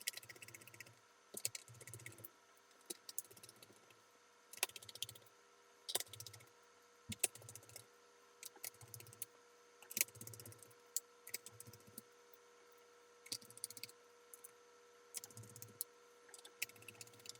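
Irregular small clicks and short rattling clusters of a screwdriver and screws working into a laptop's plastic base plate as the bottom-cover screws go back in.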